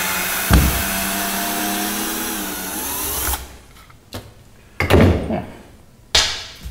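Cordless drill running in reverse to back screws out of wooden boards. The motor whine is steady and stops about three and a half seconds in. A few loud wooden knocks and clatter follow as the boards are handled on the bench.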